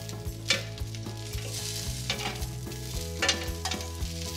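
Turkey sausages sizzling on a hot ribbed griddle pan while metal tongs turn them, with a few sharp clicks and scrapes of the tongs against the pan.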